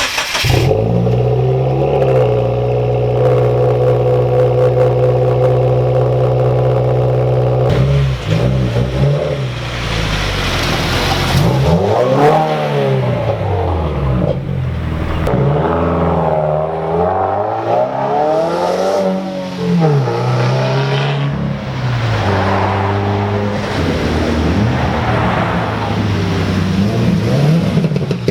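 Subaru WRX's flat-four engine and exhaust running at a steady pitch for about the first eight seconds, then revved up and down several times, the note rising and falling in broad sweeps.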